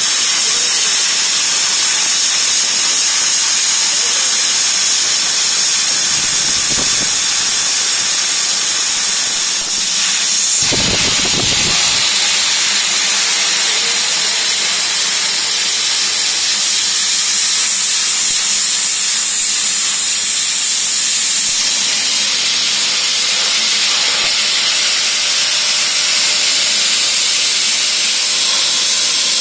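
Portable CNC plasma cutter's torch cutting metal plate: the arc and air jet make a steady, loud hiss. A brief lower-pitched noise comes through about eleven seconds in.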